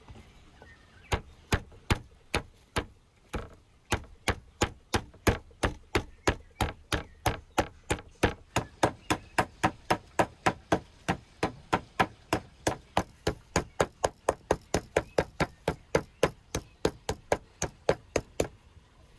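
Wooden meat mallet pounding beef through plastic cling film on a wooden cutting board: a run of sharp thuds, a few slow ones about a second in, then a steady rhythm of about three a second until they stop near the end.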